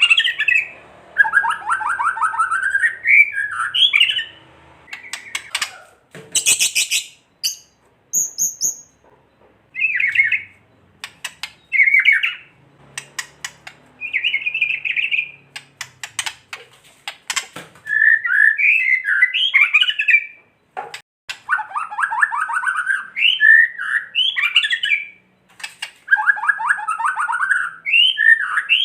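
White-rumped shama (murai batu) giving harsh, rattling 'kretekan' calls in repeated bursts, mixed with sharp clicks and a few short high whistled notes. This is the agitated, aggressive calling that keepers play to provoke other shamas into singing.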